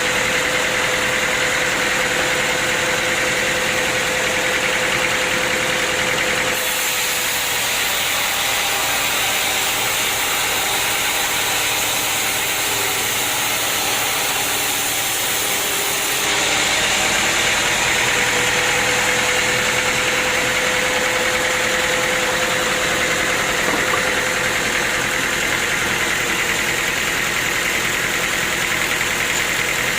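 Sawmill machinery running steadily with a humming tone. From about six seconds in, for about ten seconds, it turns hissier and brighter, then settles back.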